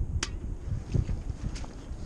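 Low, uneven wind rumble and handling noise on the microphone, with one sharp high click about a quarter second in.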